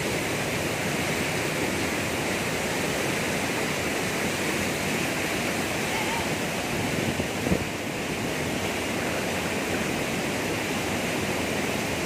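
Waterfall water rushing steadily. A brief thump is heard about seven and a half seconds in.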